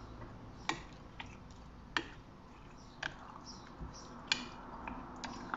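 Spoon clinking and knocking against a glass mixing bowl while prawns are stirred through thick batter: sharp, irregular clicks about once a second.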